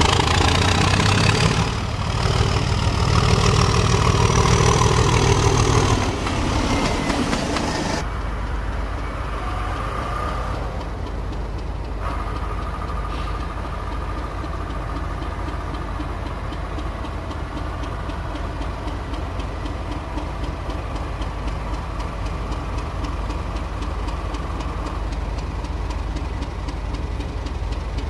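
Class 37 diesel locomotive engine working, with a rising whine over the first several seconds. About eight seconds in, the sound changes abruptly to a steadier, quieter engine running.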